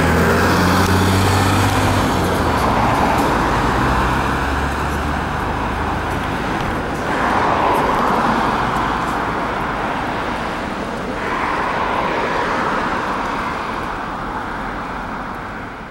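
Running sound of a Mitsubishi Fuso Aero Midi MK bus heard from inside the cabin: its six-cylinder diesel and road noise as it drives. The sound gets a little louder about seven seconds in and again about eleven seconds in.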